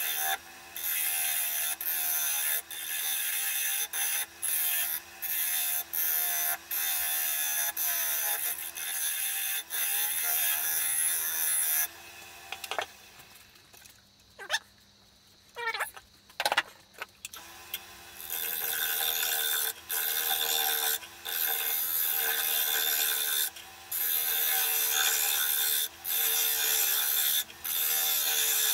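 Gouge cutting the face of a spinning wooden clock blank on a wood lathe, a hissing, scraping cut broken by brief gaps as the tool comes off and goes back on. About twelve seconds in the cutting stops for several seconds, leaving only a few small knocks. It resumes about eighteen seconds in.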